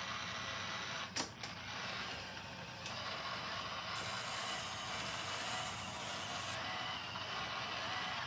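iRobot Roomba j5 robot vacuum running, a steady whir of its motor and brushes, with one sharp click about a second in and a louder high hiss for a couple of seconds midway.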